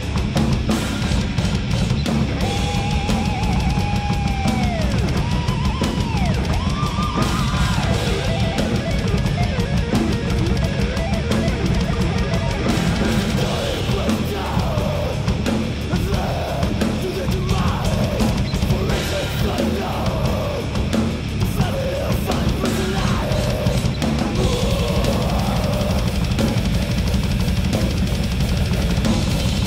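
Death metal played on a full acoustic drum kit with bass drum, snare and cymbals, over a heavy metal band track; a pitched lead line slides up and down in the first several seconds.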